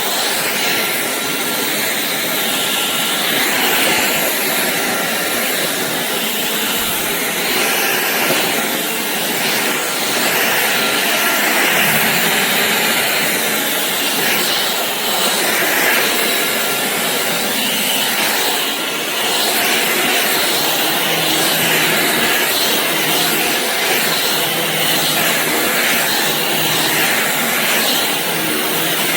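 Shark cordless stick vacuum running, a loud steady hiss of airflow with a faint high whine, swelling and easing a little.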